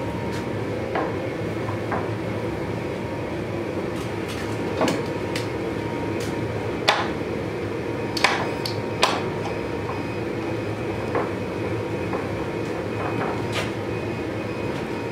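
Scattered metal clanks and knocks, about a dozen, loudest near the middle, as clamps and a wooden board are set over a freshly quenched sword blade that is still smoking. A steady mechanical hum runs underneath.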